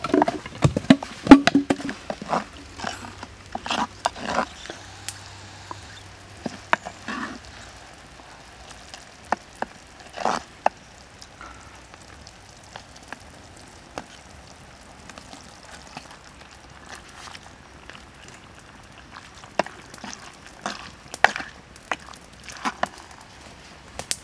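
Wooden spoon stirring a simmering stew in a clay pot, with quick knocks and scrapes against the pot over the first seven seconds or so. After that come scattered clicks, with a louder one about ten seconds in.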